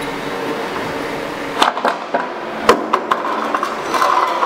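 Roll forming machine running steadily as it forms a steel guard panel, with a few sharp metal knocks and clanks, the loudest about one and a half and just under three seconds in.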